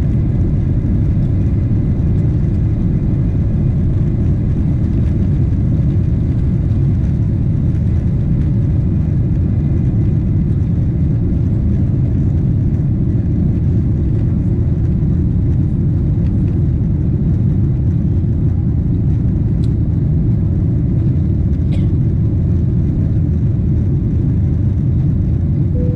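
Cabin noise of a Boeing 777-300ER at takeoff thrust through the takeoff run, liftoff and initial climb: its GE90-115B engines and the airflow make a loud, steady, low noise that holds level throughout.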